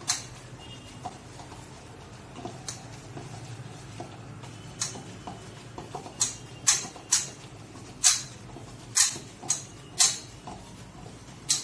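Hands kneading pearl millet (bajra) dough in a stainless steel bowl: soft pressing and squelching with irregular sharp slaps and clicks against the bowl. The slaps come more often in the second half.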